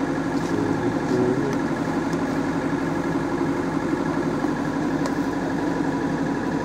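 Diesel engine of a Caterpillar backhoe idling steadily.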